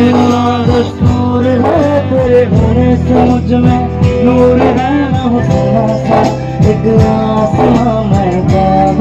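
Live band playing through a PA: a male singer over acoustic guitar, with dhol drum strokes and a tambourine keeping the beat.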